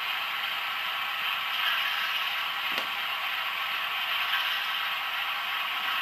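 DCC sound decoder in an OO gauge model British diesel locomotive playing a diesel engine running steadily through a small round speaker, thin with little bass. A brief click sounds about three seconds in.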